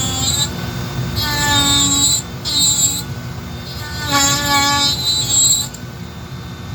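Small power carving tool cutting into wood to texture a carved beard: a high-pitched whine with a rasping noise that swells in three or four short passes, over the tool's steady running hum.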